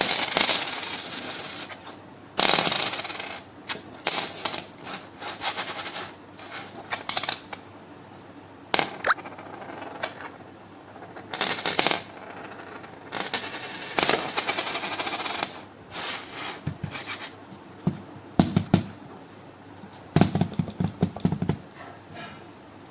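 Coins clinking and rattling into a toy piggy bank, in short bursts of clatter with brief pauses between.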